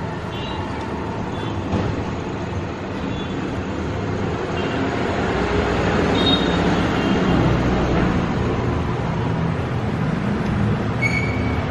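A low mechanical rumble swells toward the middle and eases off a little, with a few brief high squeaks; the clearest squeal comes near the end.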